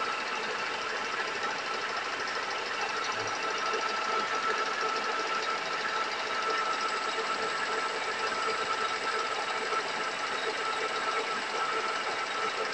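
A 1K62 screw-cutting lathe running steadily with its chuck spinning while a cutting tool turns a small pin-shaped part. It gives an even mechanical whir with a steady high whine.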